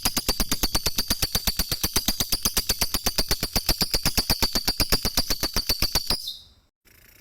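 Lovebird giving its long 'ngekek' chatter: a fast, even run of sharp high notes at about ten a second that stops about six seconds in.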